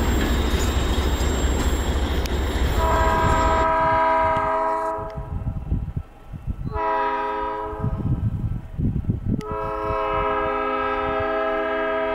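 A freight train rumbling past close by, with wheel and car noise, which cuts off abruptly a few seconds in. Then a GE B23-7 diesel locomotive's air horn sounds for a grade crossing in separate blasts: a long one, a shorter one, and a long one that is still sounding at the end.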